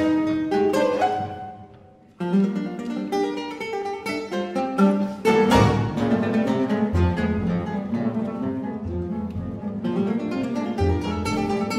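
Classical guitar ensemble with double bass playing a concert piece: a chord dies away to a brief lull about two seconds in, then quick plucked notes resume, with a strong full chord around the middle.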